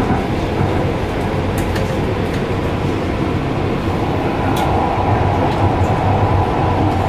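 Kinkisharyo P3010 light rail car running along the line, heard from inside: a steady low rumble of wheels on rail with faint scattered clicks. A steadier whine comes in about four seconds in.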